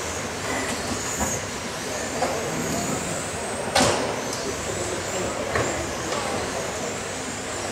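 Radio-controlled racing cars lapping a track, their motors whining, rising and falling in pitch as they speed up and brake. A single sharp knock about four seconds in stands out above the whine.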